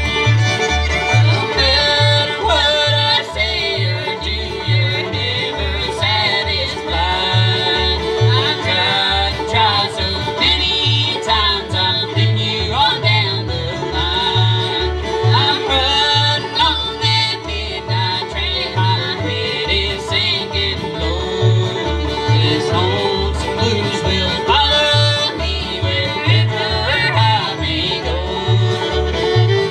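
Bluegrass band playing live: fiddle and five-string banjo over strummed acoustic guitars and an upright bass plucking a steady beat.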